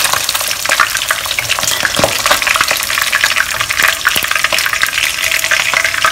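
A block of egg tofu shallow-frying in hot oil in a wok, a steady crackling sizzle, while it is turned over with chopsticks and a wooden spatula. There is one sharper click about two seconds in.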